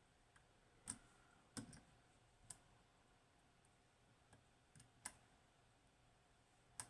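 Faint, scattered metallic clicks of a flag pick working the pins inside a DOM IX 6KG pin-tumbler lock, about six separate ticks.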